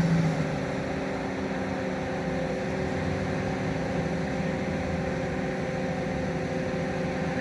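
Sierra 1500 pickup truck's engine running steadily at a constant speed, with no revving.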